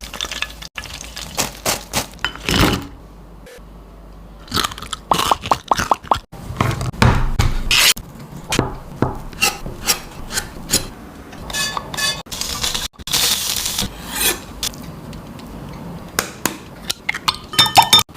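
Kitchen food-preparation sounds: a run of sharp knocks, clicks and scrapes of utensils and food being handled, in several short clips that cut abruptly from one to the next.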